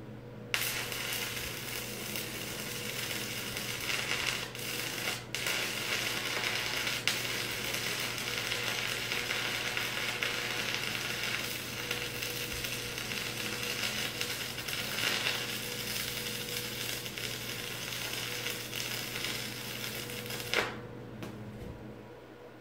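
Stick welding arc crackling steadily on steel. It starts about half a second in, breaks off briefly twice around four to five seconds in, and stops suddenly about two seconds before the end.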